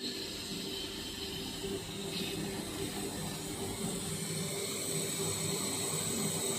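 Running machinery giving a steady hum and hiss, with a low drone and a high thin whine held throughout.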